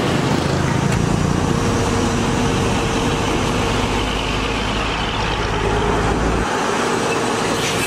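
Heavy diesel truck engine running steadily, with a deep rumble that drops away about six and a half seconds in.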